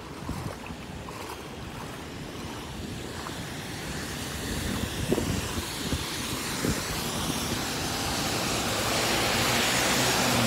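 Footsteps splashing through shallow floodwater, with a few heavier splashes in the middle. A steady rushing noise of wind and water gets louder near the end.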